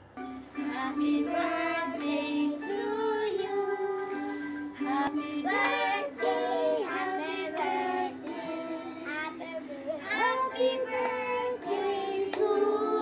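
Children singing a birthday song to music.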